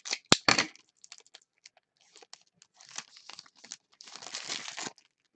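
Foil wrapper of a 2015 Certified football card pack being torn open and crinkled by hand, with a sharp click just after the start and a longer run of crinkling near the end.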